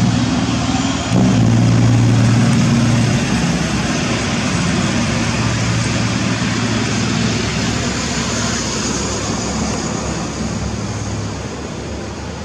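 Scania truck's diesel engine running through a straight-pipe exhaust, a steady deep rumble that gets louder about a second in and then slowly grows quieter.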